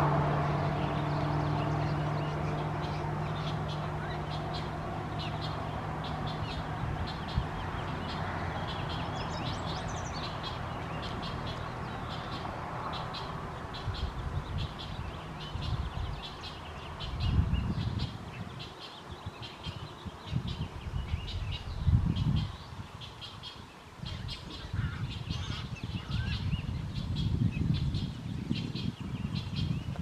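Great egret nestlings giving short, rapidly repeated high calls, with irregular low rumbling gusts on the microphone from about halfway on.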